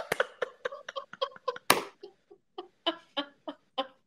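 Women laughing: a string of short pitched 'ha' pulses, several a second, with a sharp breath in a little under two seconds in, thinning out towards the end.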